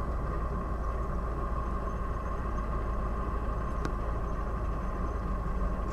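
A motor running steadily, a low rumble with a steady mid-pitched hum over it.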